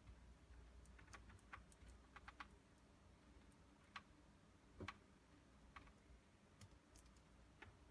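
Faint, irregular plastic clicks of a nylon cable tie being fastened around computer cables, several close together in the first couple of seconds, then sparser.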